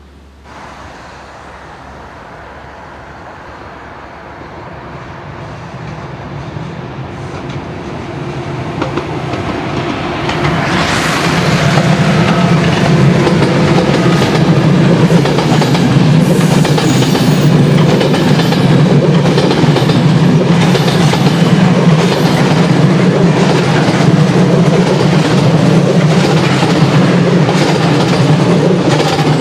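ÖBB Euronight passenger train hauled by an electric locomotive, its wheels clattering over bolted, unwelded rail joints in a continuous clickety-clack. It grows louder as the train approaches, runs loud once it is passing close by, and falls away sharply near the end as the last wagon goes by.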